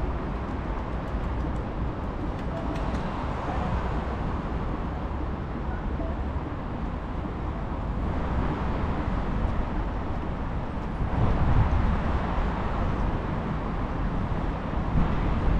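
Steady city road-traffic rumble from passing cars, with a louder swell about eleven seconds in.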